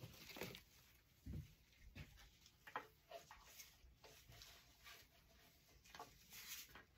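Near silence, broken by a few faint taps and rustles as a ribbon bow is handled and hung on a wooden wreath stand.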